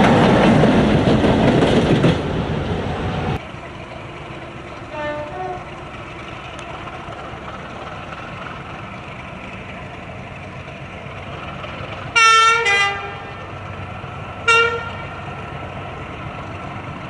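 A train runs loudly past for the first few seconds, and the sound drops away abruptly about three seconds in. Then a diesel locomotive's horn sounds: a faint blast about five seconds in, a loud two-note blast, high then lower, about twelve seconds in, and a short toot about two seconds later.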